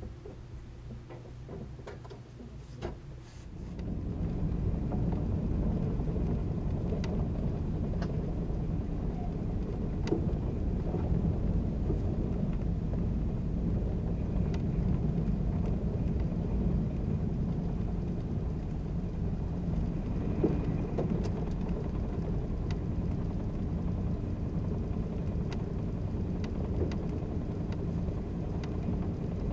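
Interior of a 583-series sleeper car above its motor bogie. For a few seconds it is quiet, with a few ticks while the train stands. Then the sound changes abruptly to the train running: a steady low rumble of wheels and motors with occasional sharp clicks.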